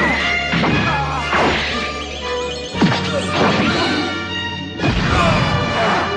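Anime fight sound effects: repeated punch and blow impacts with quick whooshes, over dramatic background music. There is a sharp hit just before the three-second mark and a dense flurry of hits about five seconds in.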